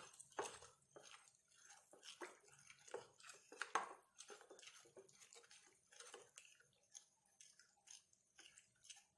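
Spoon stirring thick chocolate batter in a bowl: faint, irregular wet squelches and light scrapes, a few a second.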